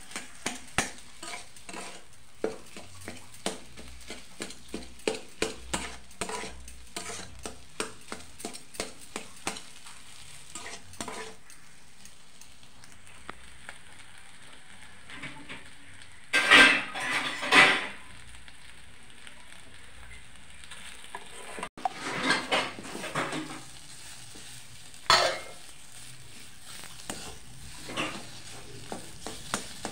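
Metal spatula stirring and scraping food around a steel kadhai as it fries, with quick clinks of metal on metal over a faint steady sizzle. About halfway through come louder bursts of scraping and clatter, then twice more a little later.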